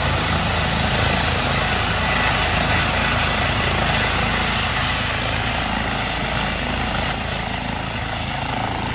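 Aircraft engine noise: a steady, loud drone with a rushing hiss, easing off slightly about seven seconds in.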